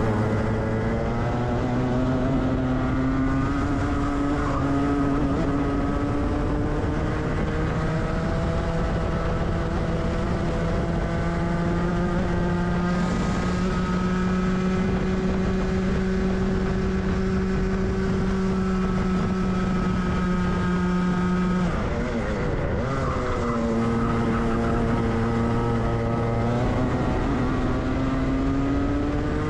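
Onboard sound of a Rotax two-stroke kart engine pulling up through its revs for about thirteen seconds, then holding near the top. About 22 seconds in the revs drop steeply as the throttle is lifted, and they climb again.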